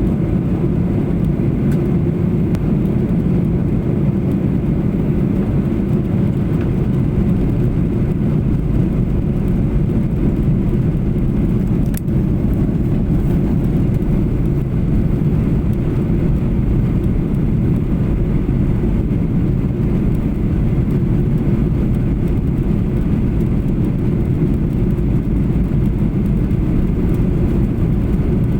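Steady cabin noise inside a Boeing 737-800 in flight: a constant low rumble of airflow and engines, with a single sharp click partway through.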